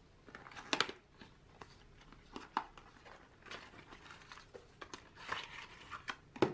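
Small cardboard gift box being opened and handled, with crinkling of its shredded paper filling. There are intermittent rustles and two sharp cardboard taps, one about a second in and one near the end.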